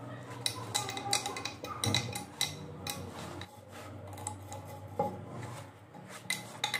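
Metal bolts and fittings handled against a ceramic toilet cistern: a series of sharp irregular clinks and scrapes over a faint low steady hum.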